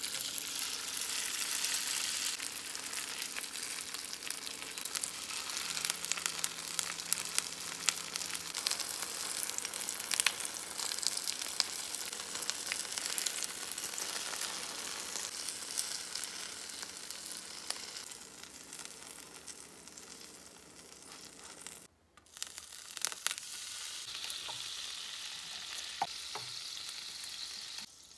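Skewered rice-paper tteok rolls frying in a generously oiled nonstick pan: a steady sizzle with many sharp crackles and pops. About 22 seconds in it drops off briefly, then the sizzling goes on more quietly.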